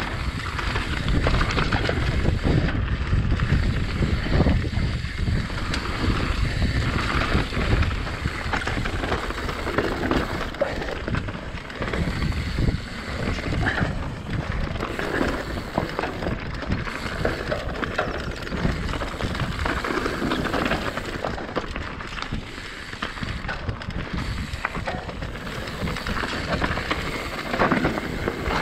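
Mountain bike riding a dirt trail: tyres rolling over dirt and rocks with steady rattling from the bike, and wind on the microphone.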